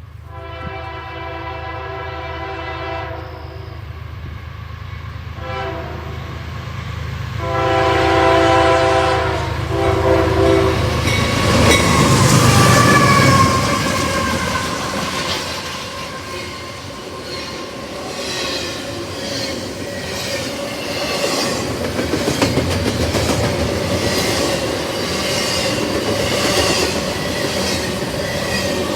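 CSX 5206's multi-note air horn sounds four blasts in the first ten seconds: a long one, a short one, a long one and a shorter one. The lead diesel locomotive then passes close, loudest a little after the horn stops, and the double-stack train's cars follow with a steady clickety-clack of wheels over rail joints.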